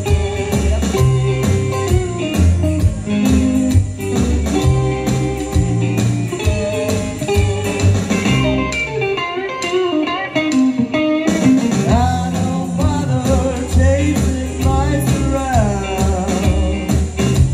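Karaoke singing into a microphone over a rockabilly backing track with bass and guitar. The bass drops out briefly about nine seconds in, then comes back.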